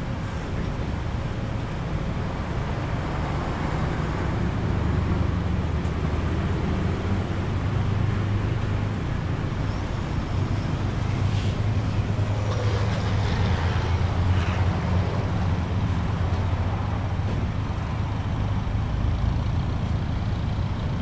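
Heavy diesel truck engine running with a steady low rumble that swells about four seconds in as the tanker truck pulls away, over general traffic noise. Short hisses come about 11 and 14 seconds in.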